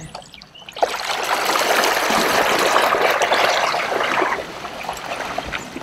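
Water churning and rushing in the prop wash of a kayak's outboard motor as the boat spins around. It swells about a second in and tapers off near the end.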